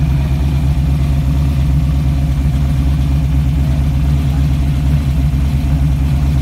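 Ford GT40 replica's 427 Cobra V8 idling steadily, a loud, deep, lumpy rumble with no revving.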